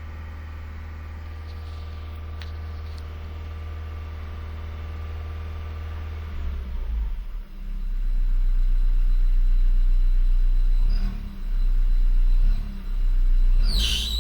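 2013 Ford Fiesta's alternator and drive belt running with the engine, giving a steady whine of many even tones over a low hum. After about six seconds the whine drops away and a louder low rumble takes over, and a sharp rising squeal comes in near the end. The noise comes from the alternator being driven at a high charging voltage by a battery in bad condition.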